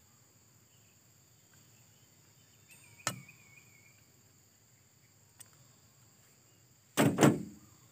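A sharp click about three seconds in, then two loud clunks close together near the end as the stripped-down chainsaw and its parts are handled on a wooden stump. A faint steady high insect buzz runs underneath.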